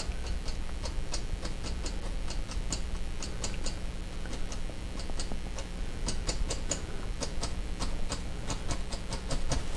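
Fan brush tapping oil paint onto a stretched canvas: a run of quick, irregular taps, a few a second, over a low steady hum.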